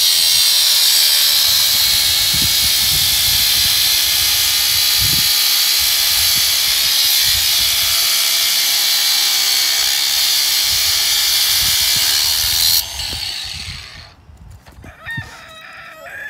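Cordless angle grinder cutting through a steel rod: a loud, steady, high-pitched grinding that stops abruptly about 13 seconds in.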